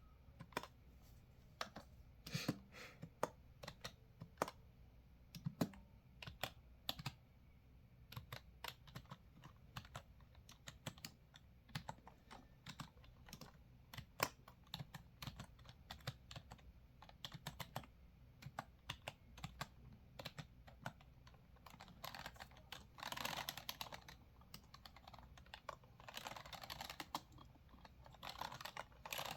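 Computer keyboard typing: irregular, soft keystroke clicks, with two stretches of denser continuous scratchy sound in the last third.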